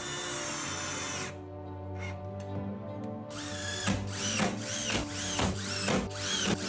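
Cordless drill/driver running: a steady stretch of drilling, then screws driven in quick short pulses, the motor whine rising and falling about three times a second, over background music.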